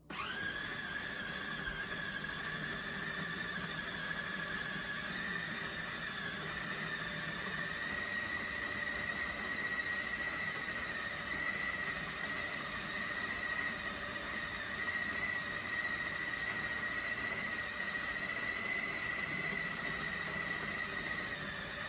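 Electric food processor motor running with a steady high whine as it grinds chunks of raw beef and pork into mince. It starts suddenly, and its pitch rises slightly about six seconds in.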